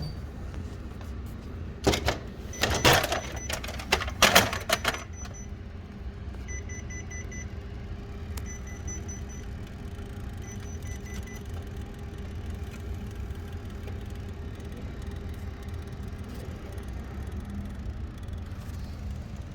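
Kyocera TASKalfa photocopier: a run of loud clicks and knocks, then short high beeps in groups of a few, about every two seconds, over the machine's steady hum.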